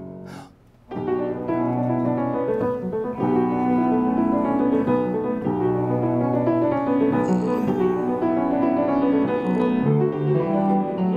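Solo piano playing a busy passage of many quick notes. It starts about a second in, after a held chord dies away and a short pause.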